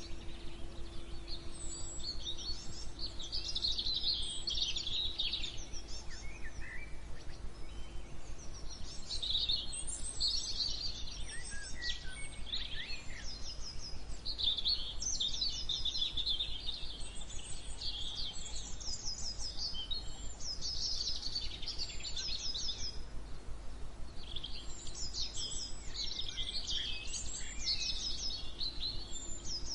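Several songbirds chirping and singing in overlapping phrases, with quick repeated trills, over a faint steady low hum.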